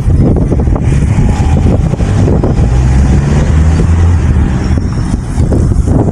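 Loud, steady low rumble of wind buffeting the microphone, mixed with the noise of road vehicles.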